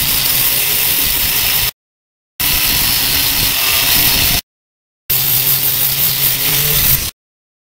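Electric angle grinder with a wire cup brush running against rusted sheet-steel floor, a loud steady scrubbing hiss over the motor's hum as it strips off scaly rust. The sound cuts out completely for a moment three times.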